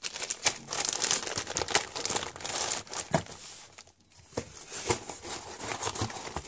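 Plastic packaging bags rustling and crackling as they are pressed and pushed down into a cardboard box, with a brief lull about four seconds in and a few sharp snaps after it.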